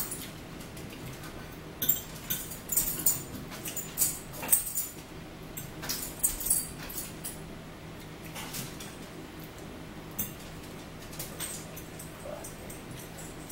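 A metal fork clinking and scraping against a plate, short irregular clinks that come thickest in the first half and thin out later.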